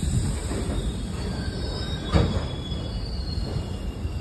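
Indian Railways passenger coaches rolling slowly past as the train pulls out: a steady low rumble of wheels on rails with faint high wheel squeal, and a single loud clank about two seconds in.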